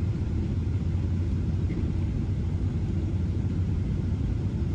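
Steady low rumble of a Boeing 777-300's engines and airflow heard from inside the passenger cabin on final approach.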